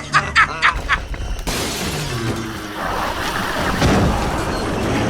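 Cartoon battle sound effects: four short, sharp hits in the first second and a half, then a dense, continuous crashing and breaking noise.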